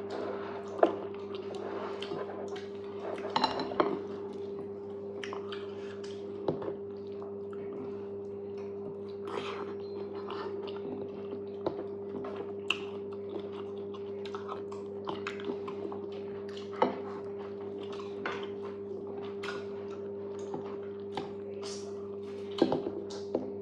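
Close-up eating sounds of fufu and okra soup: irregular wet chewing and mouth smacks, with a few sharper clicks like a bowl or utensil being touched. A steady low hum runs underneath.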